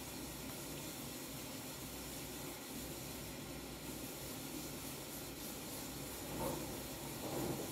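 Steady low hiss of background noise, with no distinct event standing out.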